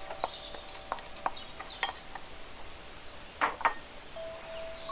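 Wooden spatula knocking and scraping against a bowl and a stainless steel Instant Pot inner pot as diced onion goes into the oil, a few light taps with two sharper knocks about three and a half seconds in.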